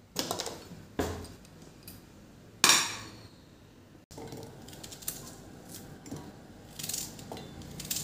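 Sharp metal clinks as the whistle weight is set on an aluminium pressure cooker's lid, the loudest about two and a half seconds in. From about four seconds on there are softer knocks and rustles of a knife and cut onion pieces going into a steel mixer-grinder jar.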